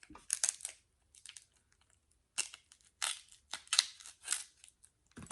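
Crab leg shells being cracked and broken apart by hand, without a cracker. The sound is a series of irregular sharp crunches and cracks in short clusters.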